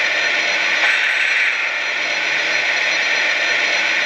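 Onboard sound system of a Lionel Western Pacific GS-6 O gauge steam locomotive standing still, playing steady mechanical sound effects of a steam engine at rest.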